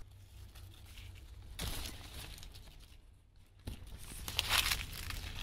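Rustling and crackling of leaves and foliage in two noisy bursts, about one and a half seconds in and again about four seconds in, with a couple of sharp clicks.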